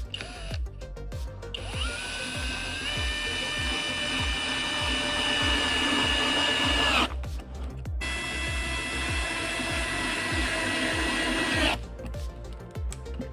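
Electric hand drill running: a brief blip, then spinning up with a rising whine and running steadily for about four seconds, stopping, and running again for about four seconds.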